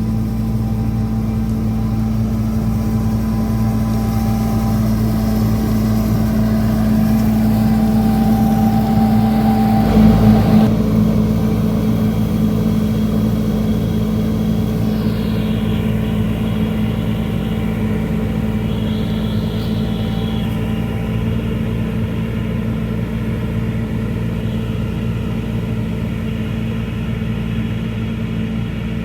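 Engine of almond-harvesting machinery running steadily, with a short loud knock about ten seconds in.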